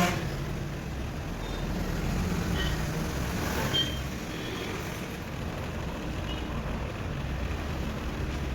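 Steady low rumble of background road traffic, with a few faint, short, high-pitched chirps.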